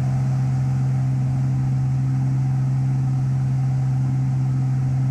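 Extra aerobatic plane's piston engine and propeller running steadily, heard from inside the cockpit: a constant low drone with one strong deep tone that does not change.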